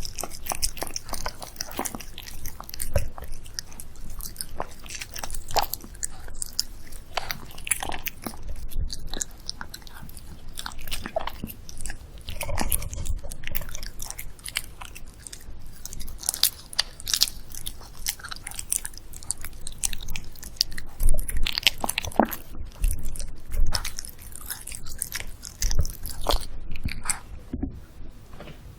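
A dog eating close to the microphone, with irregular biting, chewing and crunching sounds from a homemade dish of boiled kabocha pumpkin, egg and beef.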